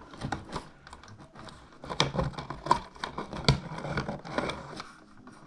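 Irregular clicks, knocks and rustling of stiff electrical wires and plastic wire connectors being pushed back into an electrical box, with the sharpest knocks about two and three and a half seconds in.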